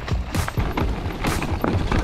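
Background music with a steady beat: dense low thumps, and a sharp accent about once a second.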